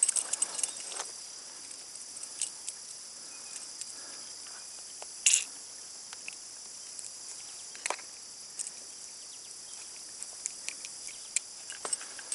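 Steady high-pitched insect chorus, with a few scattered sharp clicks and taps, the loudest about five seconds in.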